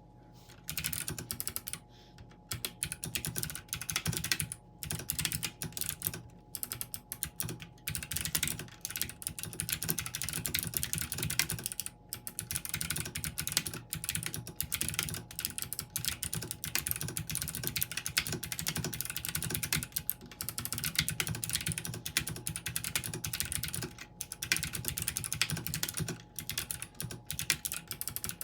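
Fast, continuous typing on a 40% mechanical keyboard with Kailh Box Jade switches, a dense run of sharp clicks from the clicky switches' click bars, starting about a second in and broken by a few short pauses.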